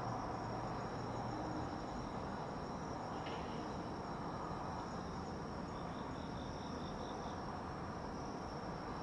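Night insects, crickets, trilling steadily in a continuous high band, with a short run of quick chirps from another insect about six seconds in, over a low, even background noise.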